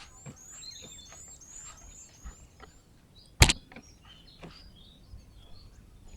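Small birds chirping in quick repeated high notes, with one sharp knock about halfway through.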